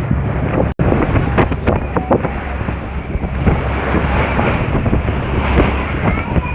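Wind buffeting the microphone over the wash of sea waves.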